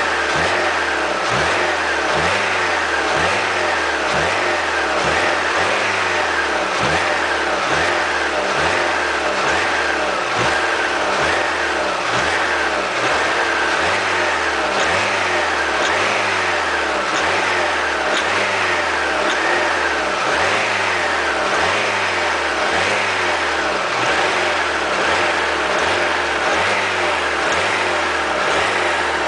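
Alfa Romeo 156 2.0 Twin Spark four-cylinder engine running with an evenly pulsing low note and a grinding, gear-crunch-like noise on top. The owner takes it for pinging, pre-ignition knock.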